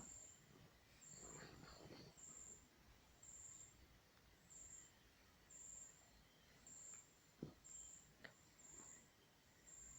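Near silence, with faint high chirps of an insect repeating about once a second and two soft knocks about seven and eight seconds in.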